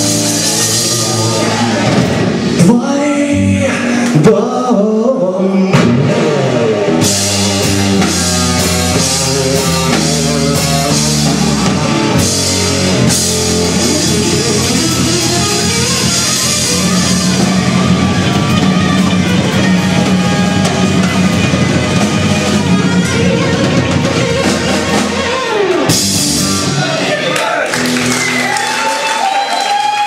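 Live rock band playing: electric guitar, bass guitar, acoustic guitar and drum kit, with a voice singing over them. The full band sound thins out in the last few seconds.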